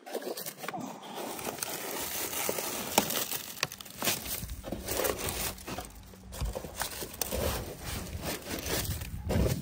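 Dry leaves crackling and crinkling as a hand scoops and crushes them out of a metal rain gutter. Dense, irregular crackle with sharp clicks throughout, the loudest about three seconds in.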